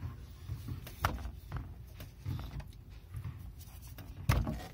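Handling noises as gloved hands work around a boat transmission: scattered soft knocks and a few sharp clicks, the loudest about four seconds in.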